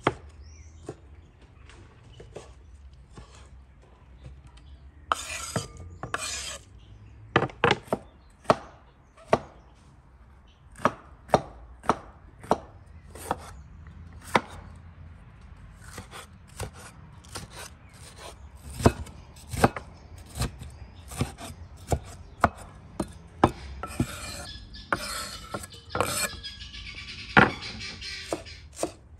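Cleaver-style kitchen knife chopping tomatoes and a bell pepper on a wooden cutting board: irregular sharp knocks of the blade on the board, a few each second. There are longer scraping sounds about five seconds in and again near the end.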